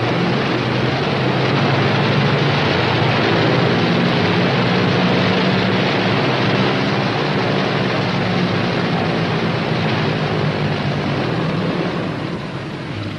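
The P-61 Black Widow's twin Pratt & Whitney R-2800 radial engines running, a steady rough drone with a low hum under it that eases off a little near the end.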